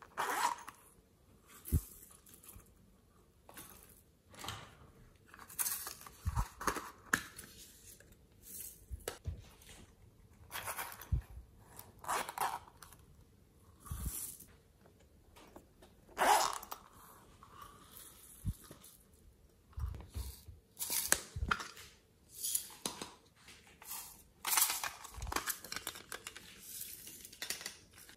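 Small plastic and silicone containers handled close up: cases and lids opening and being set down, giving short clicks, scrapes and rustles every second or two.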